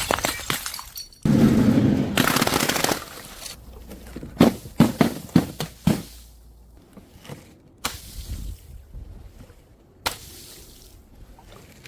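Glass bottles breaking: a dense crash a little over a second in, then a quick run of sharp clinks and knocks, and a few single clicks later.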